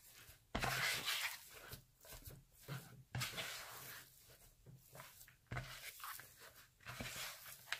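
Red silicone spatula folding stiff chocolate chip cookie dough in a mixing bowl: irregular scraping and smearing strokes against the dough and bowl, the loudest about half a second in, near three seconds and past halfway.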